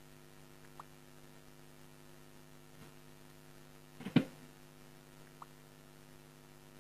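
Steady low electrical mains hum from the studio's sound equipment, with a few faint ticks and one short, louder noise about four seconds in.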